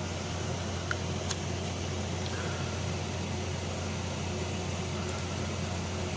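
Steady whir of running desktop computer cooling fans with a low hum, and two faint clicks about a second in.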